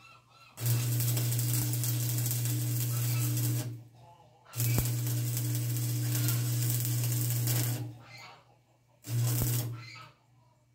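Electric arc welding in three bursts that start and stop abruptly: two of about three seconds each, then a short one near the end, each with a steady buzz under the noise.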